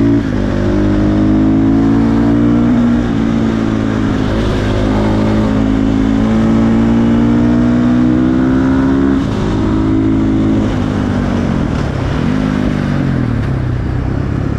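KTM 450 single-cylinder four-stroke supermoto engine with an aftermarket exhaust, pulling up through the gears. Its pitch climbs in each gear and drops at each shift, about 3 and 9 seconds in. Near the end the revs fall off as the bike slows.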